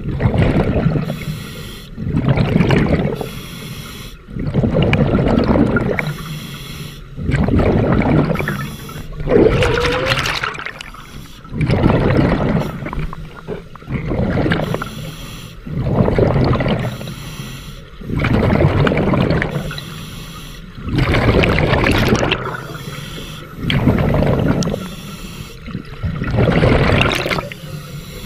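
Scuba diver breathing through a regulator underwater: a bubbling exhalation about every two and a half seconds, with quieter hissing inhalations between them.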